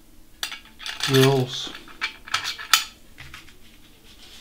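Small CNC build hardware (wheels, spacers and shims) clicking and clinking as pieces are picked from a loose pile and stacked onto bolts on an aluminium plate, with a few sharp clicks.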